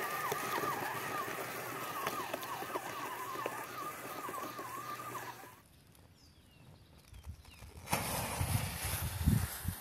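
Small DC gear motors whining as a cardboard toy tank drives over dirt, the pitch wavering up and down. About halfway through the sound cuts off to near quiet, then low rumbling gusts of noise start up.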